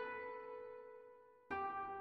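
Slow background piano music: a chord rings and fades, and another is struck about a second and a half in and left to ring.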